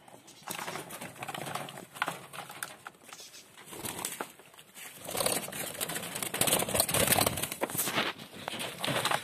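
Caged chukar partridges calling, a dense run of low clucking calls that grows louder about halfway through.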